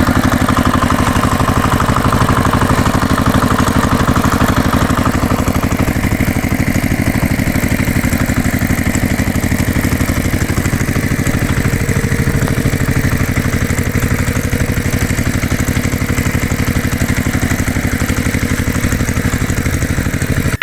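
A miniature DIY tractor's engine sound, running steadily with a fast, even chug.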